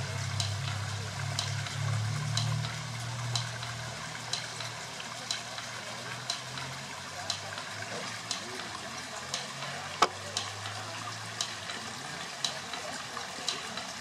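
Model water mill's wooden clapper clacking about once a second over the steady rush of a small stream.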